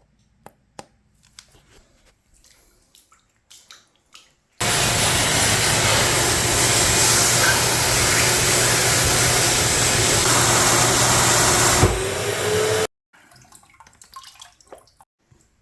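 Shop vac running for about eight seconds, pulling up floodwater: a loud steady rush over a low hum that starts and stops abruptly, its pitch rising briefly near the end. Faint drips and small knocks come before and after it.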